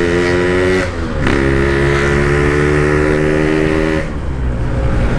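Yamaha RX-King's 135cc two-stroke single running under steady throttle while riding, through a stock-style packed side muffler. The note breaks briefly and climbs back about a second in, like a gear change, and fades away about four seconds in.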